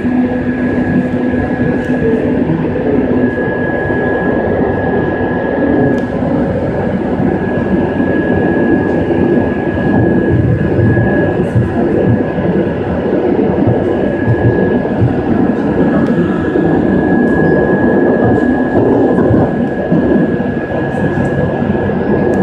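Madrid Metro Line 5 train running between stations: a steady rumble with a thin, steady whine above it throughout.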